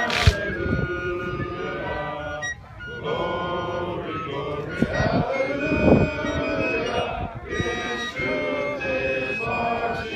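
A large group of men singing together without instruments, in long held phrases. A single sharp knock sounds right at the start.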